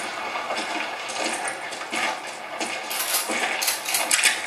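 A film soundtrack played through home speakers: a run of sharp metallic clinks and rattles over a hissy bed of noise, coming thickest near the end.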